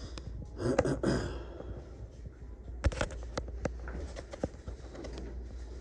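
Quiet room tone with a steady low hum, scattered light clicks and taps, and a brief spoken "fine" about a second in.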